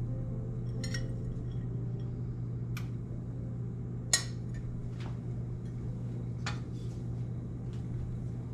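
Kitchenware clinking: a handful of short, sharp clicks and knocks of utensils or dishes, the loudest about four seconds in, over a steady low hum.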